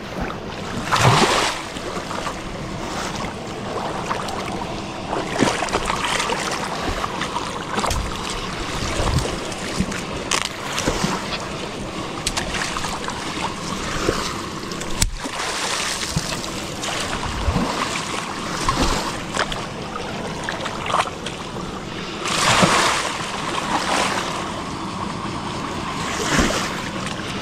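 Water splashing and sloshing in shallow backwater as people wade and stir it up to drive fish toward a staked net, with wind on the microphone. A few louder surges come about a second in and again near the end.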